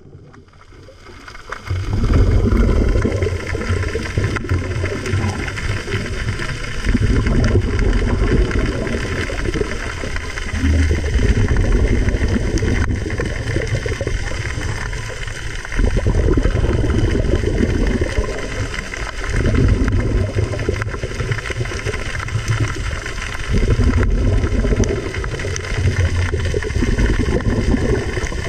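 Muffled underwater water noise picked up by the camera: a low rumbling wash that swells and eases every few seconds.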